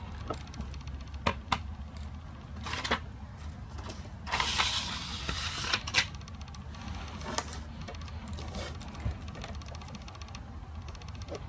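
Paper and a pen being handled on a desk: a few sharp clicks and taps, and about four seconds in, a second and a half of paper rustling, over a steady low hum.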